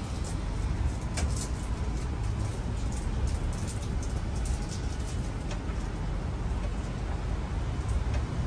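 City bus driving along the road, heard from inside the cabin: a steady low rumble with road noise and a few light clicks.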